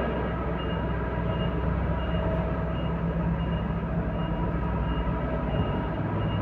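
Heavy machinery running steadily with a deep hum, while a short high beep repeats about every 0.7 seconds, like a warning beeper.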